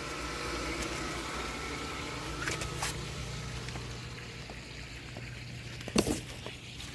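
Steady low hum of a 1.5 hp two-speed pool pump running, under a faint wash of water noise, with a sharp knock about six seconds in.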